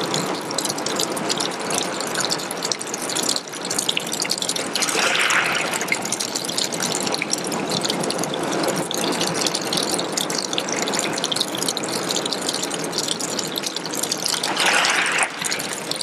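Small trickle of water running down a rock face and splashing onto pebbles: a steady patter of fine drips and splashes, with brief louder rushing swells about five seconds in and again near the end.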